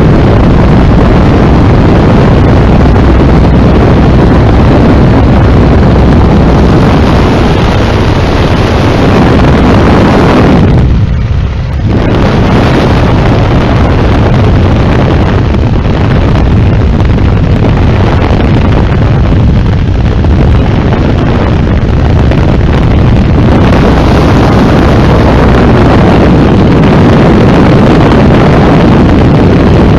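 Biplane's radial engine and propeller running steadily in flight, heard from the open cockpit with heavy wind buffeting the microphone. The sound is loud, near the microphone's limit, and drops briefly about 11 seconds in.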